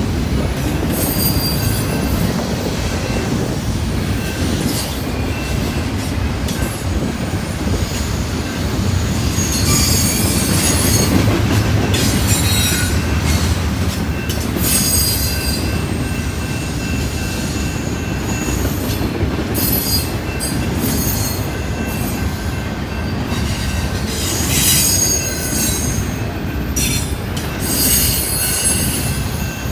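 Canadian Pacific freight train rolling past at close range: a steady rumble of wheels on rail, with high-pitched wheel squeal rising and fading several times.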